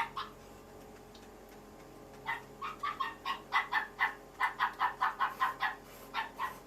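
An animal calling: a quick series of short, pitched calls, about four a second, beginning about two seconds in. Two short clicks come right at the start.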